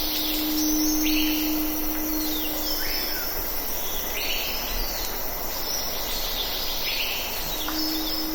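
Wild birds in a tropical forest giving short, high calls over and over, each under a second and some ending in a falling slide. Beneath them a steady low hum fades out about three seconds in and returns near the end.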